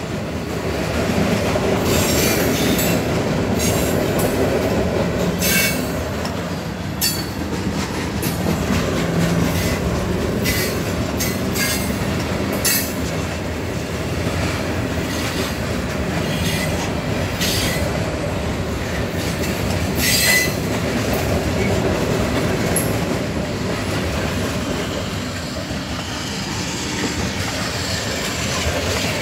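Cars of a Norfolk Southern manifest freight train rolling past: a steady rumble of steel wheels on rail, broken by frequent short wheel squeals and clicks.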